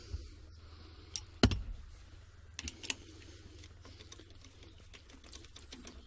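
Scattered light clicks and one sharper knock about a second and a half in: small metal parts of a gear-stick assembly being handled as a bias-plate spring is fitted onto the gear lever.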